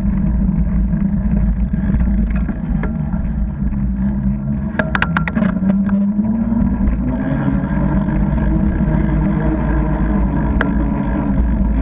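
Steady rumble of wind on the microphone and tyres rolling on tarmac from a bicycle-mounted camera while riding, with a quick run of sharp rattling clicks about five seconds in and a single click near the end.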